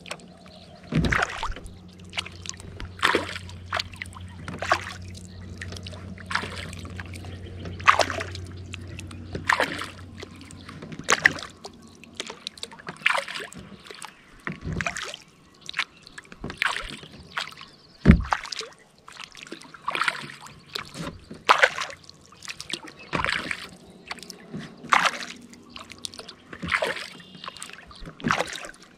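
Kayak paddle strokes in calm lake water, with a splash and dripping from the blade about once a second.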